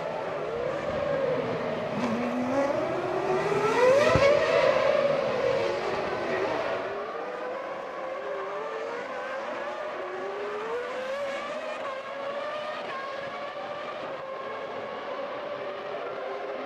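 Formula One cars' V10 engines revving up and down through gear changes, several heard at once. The loudest, about four seconds in, climbs in pitch and then falls away; from about seven seconds in the engines are quieter and steadier.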